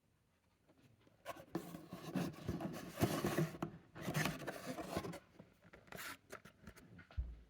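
Packaging handled by hand during an unboxing: cardboard and plastic rubbing and scraping, with scattered sharp clicks. It starts about a second in and dies down near the end.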